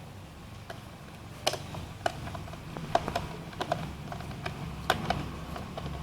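Irregular small clicks and taps of a precision screwdriver and screws being driven back into a laptop's plastic bottom panel, the loudest about one and a half, three and five seconds in.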